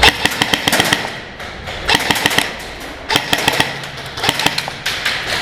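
Airsoft rifle firing in about five short full-auto bursts, each a rapid rattle of shots with brief pauses between them.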